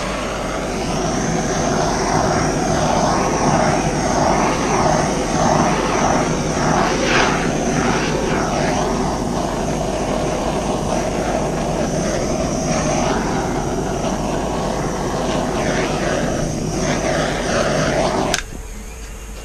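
Handheld hot-air blower, such as a heat gun, running steadily over the freshly poured acrylic paint, with a rushing airflow that wavers as it is moved about. It switches off suddenly about 18 seconds in.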